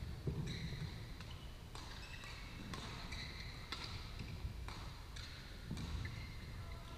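Badminton play on several courts in a large, echoing sports hall: irregular sharp racket hits on shuttlecocks roughly once a second, short high shoe squeaks on the court mats, and a steady low hum of hall noise.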